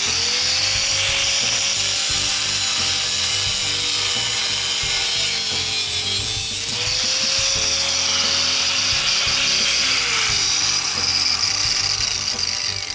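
Angle grinder with an abrasive cutoff wheel cutting through the steel shell of an air tank: a steady loud grinding with a high hiss from the cut. The motor's pitch sags briefly about halfway through under load, and the grinder winds down near the end.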